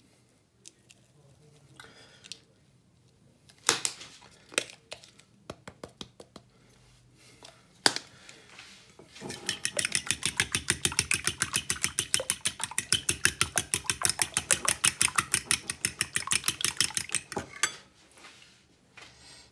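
Metal fork whisking beaten eggs in a ceramic bowl. A few scattered clinks of the fork on the bowl come first; then, about nine seconds in, fast and even beating begins, about five strokes a second with a clink on each, and it stops a couple of seconds before the end.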